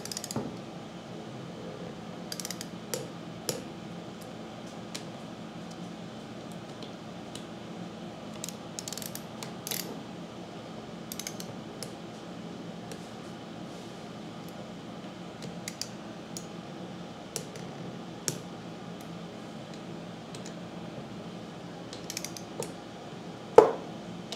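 Click-type torque wrench ratcheting in short runs of small clicks as pump manifold bolts are tightened to 5 foot-pounds, with a louder knock near the end.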